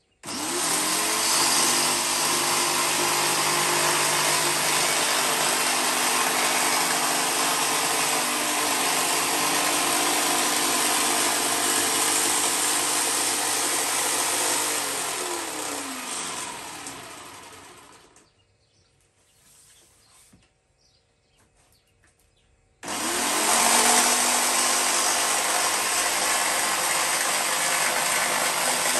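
Corded jigsaw with a fine-tooth blade cutting a PVC cladding panel lengthwise. The motor starts and runs steadily for about fifteen seconds, winds down to a stop, and after a pause of a few seconds starts up again and runs on.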